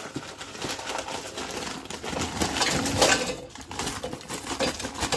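Plastic bag of oven chips crinkling as the chips are shaken out, clattering and tumbling into a plastic air fryer basket in a dense run of small knocks and rustles.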